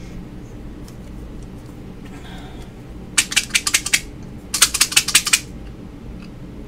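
Two short bursts of rapid, light, sharp clicks, each under a second long, the second following about half a second after the first, over a faint steady hum.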